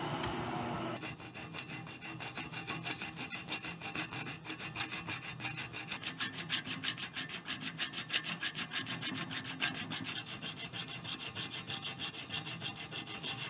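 Hand file rasping over a weld-repaired aluminium cooling fin on a Triumph Tiger Cub cylinder head, in quick, even back-and-forth strokes that dress the weld down. A steady hum fills the first second before the filing starts.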